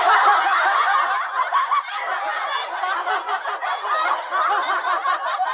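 Several people laughing together in a dense, continuous burst. It starts suddenly and is loudest in the first second.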